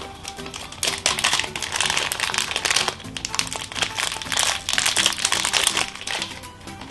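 Plastic packaging crinkling and rustling as it is handled and pulled open, loudest from about a second in until near the end, over steady background music.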